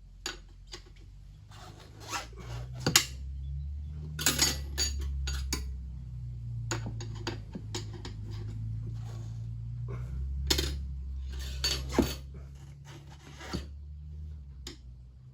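Tyre levers clinking and scraping against a wheel rim as a tubed tyre's bead is levered over the rim: a string of irregular sharp metallic clicks and knocks over a low steady hum.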